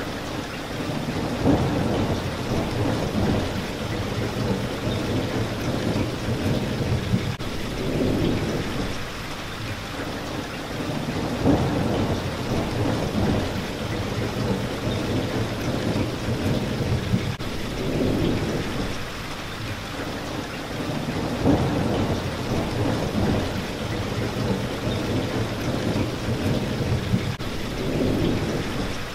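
Steady rain falling on a window, with low rumbles of thunder that swell and fade every few seconds.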